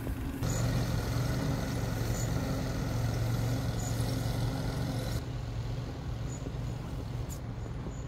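Steady low rumble of outdoor background noise, which grows louder with more hiss about half a second in and drops back abruptly about five seconds in.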